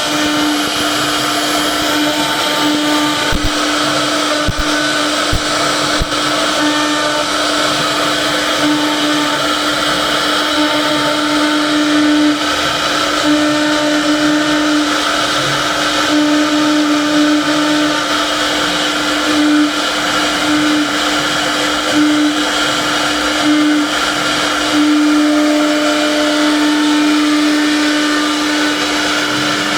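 CNC router spindle running at a steady high pitch while its bit cuts wood.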